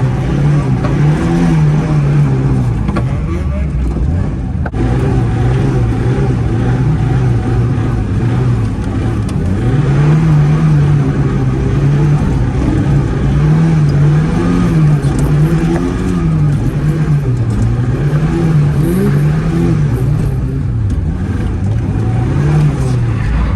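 Zhiguli car engine running hard, its pitch rising and falling over and over, about once a second through the second half, as the throttle is worked while drifting on snow.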